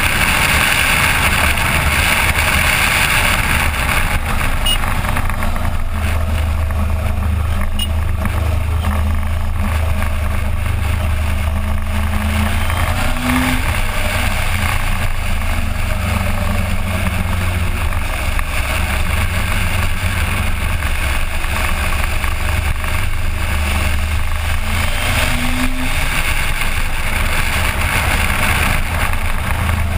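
Suzuki GSX1400 inline-four motorcycle engine running under way at a fairly steady speed, heard from an on-bike camera, with a brief small rise in pitch twice.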